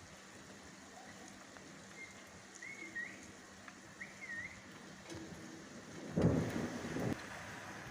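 Steady rain falling, with a few short wavering chirps in the middle and a louder low rumble lasting about a second near the end.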